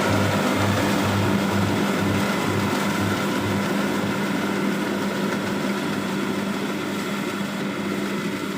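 Kubota DC-60 rice combine harvester's diesel engine running steadily while harvesting, with a low throb that pulses about twice a second and fades out about three and a half seconds in; the whole sound eases off slightly towards the end.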